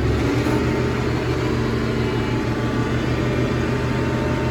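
Massey Ferguson 1105 tractor's six-cylinder diesel engine running steadily while powering a John Deere 335 round baler whose bale chamber is full.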